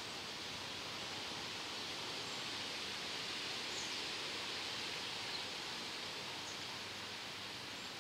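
Steady outdoor ambience: an even rustling hiss, with a couple of faint, short chirps about midway.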